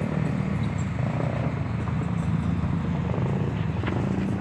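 Hyundai HX210S excavator's diesel engine running steadily, with a short tick near the end.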